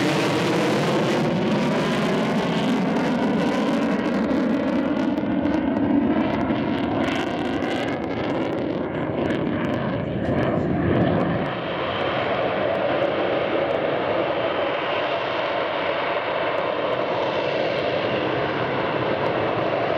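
Pratt & Whitney F135 jet engine of an F-35B Lightning II, loud and continuous as the jet passes, with a sweeping, phasing rise and fall in tone through the first half. About halfway through it steadies into an even roar as the jet slows and, near the end, hovers on its lift fan and swivelled rear nozzle.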